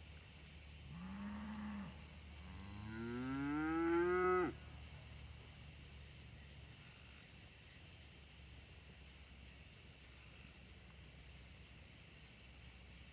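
Cow mooing: a short low moo about a second in, then a longer, louder moo rising in pitch that cuts off about four and a half seconds in. A steady high chorus of insects runs underneath.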